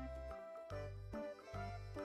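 Background music: a light instrumental tune with a low bass note about every three-quarters of a second.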